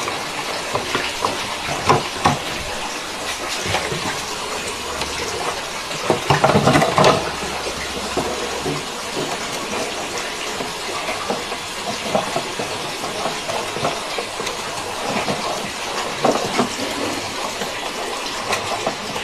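Steady rush of spraying water with scattered clicks and knocks, louder for a moment about six seconds in.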